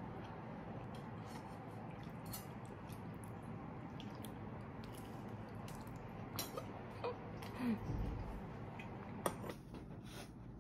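Faint scattered clicks of a metal spoon against a ceramic bowl while eating, over steady room hum, with a few louder clinks in the second half and a soft thump about eight seconds in.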